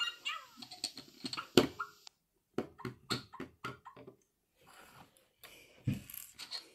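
LEGO Super Mario interactive figure in the Cat Mario suit being handled and set down on a wooden table: irregular light plastic clicks and taps, one louder click about a second and a half in and a soft thump near the end. A few faint electronic tones from the figure fade out at the very start.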